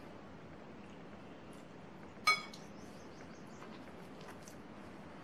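Faint sounds of hands mixing wet wheat flour and chopped spinach into dough in a glass bowl, with one short, high ringing note a little over two seconds in.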